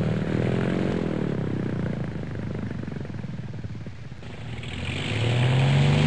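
Propeller airplane engine droning as it passes, its pitch bending and the sound fading to its quietest about four seconds in. A louder steady low drone then builds from about five seconds in.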